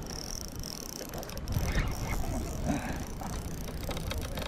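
Spinning reel being cranked, its gears turning with a fine steady whirr and small clicks.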